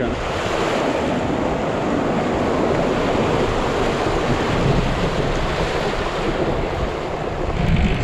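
Water splashing and rushing steadily around the wheels of a Zero FX electric motorcycle as it fords a shallow stream, easing off near the end.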